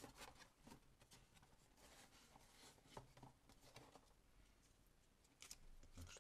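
Faint rustling and scraping of a cardboard gift box being opened and handled, its lid flaps and paper insert rubbing, with a few soft clicks.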